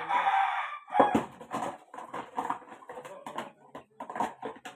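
Water poured and swished as a baby's feeding bottle is rinsed: a rush of water during the first second, then a run of irregular splashes and knocks as the bottle is handled.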